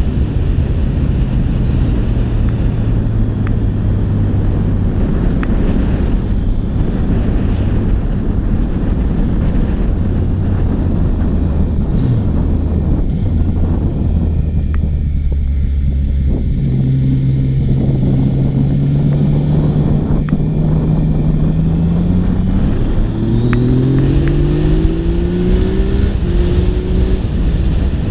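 Yamaha XSR900's 847 cc inline-three engine with heavy wind noise on the microphone: the note falls about twelve seconds in as the bike slows, then climbs steadily under acceleration and revs up in a run of rising pulls through the gears near the end.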